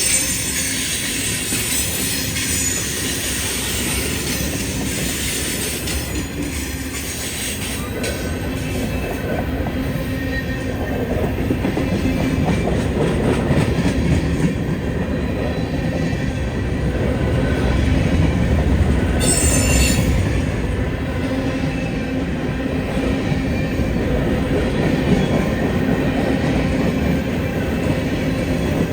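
Freight train rolling past: steady rumble of wheels and cars on the rail, with a brief sharp high-pitched sound about two-thirds of the way through.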